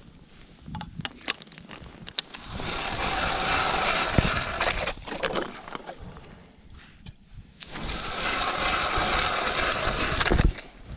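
Hand ice auger cutting into lake ice, two spells of grinding and crunching of about two and a half seconds each, with a pause between them.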